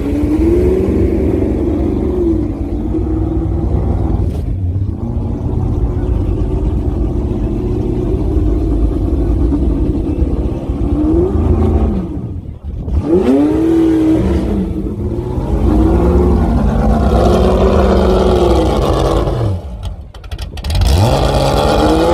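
Ford GT40's V8 engine, loud, revved up and down again and again, its pitch rising and falling with each blip of the throttle, with a short drop-off about twelve seconds in.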